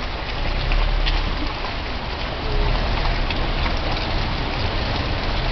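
Steady wet hiss of tyres rolling over a slushy, snow-covered street, with a low rumble underneath and a few faint crackles.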